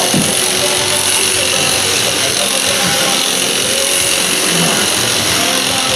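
Electric sheep-shearing handpiece running steadily, its comb and cutter clipping through a sheep's fleece.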